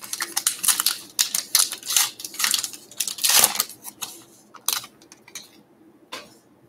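Trading cards and their pack being handled: a dense, crisp rustling and flicking for about four seconds, thinning to a few scattered clicks.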